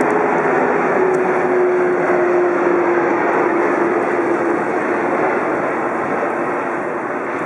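Twin-engine jet airliner on landing approach passing overhead: a steady broad jet rush with a whine that slides slowly down in pitch, easing off slightly toward the end as it moves away.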